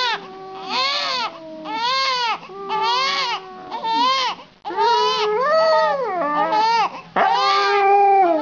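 A baby crying in repeated wails, about one a second. A husky lying against it joins in with long, low, steady howls that slowly sink in pitch, strongest about a second in and near the end.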